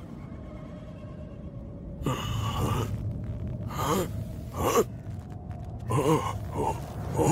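An old man's voice gasping and grunting several times in short, bewildered sounds, starting about two seconds in, over a faint low hum.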